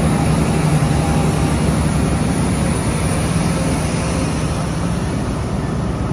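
Class 43 HST power car's MTU V16 diesel engine running steadily as the train comes to a stand, its level easing slowly.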